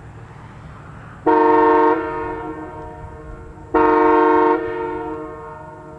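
Multi-chime train air horn sounded in two short blasts, each a chord of several tones lasting under a second, the second a little longer. Each blast rings on in a fading echo.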